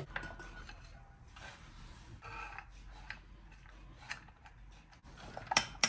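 Faint kitchen prep handling sounds: a brief scrape and a few light clicks and knocks, the loudest near the end.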